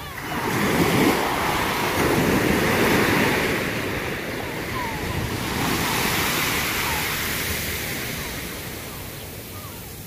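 Small surf waves breaking and washing up a sand beach: a rush of foam that swells about a second in, swells again around six seconds, then slowly fades.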